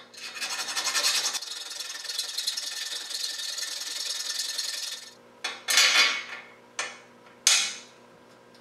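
Small square jeweler's file rasping metal in the square mounting hole of a Triumph Spitfire bumper overrider, enlarging the undersized hole so the bolt will fit. Rapid, continuous strokes for about five seconds, then four slower separate strokes.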